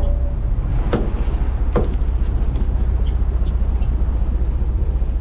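A sportfishing boat's engine running with a steady low rumble, under a wash of wind and sea. Two short knocks land about a second and nearly two seconds in.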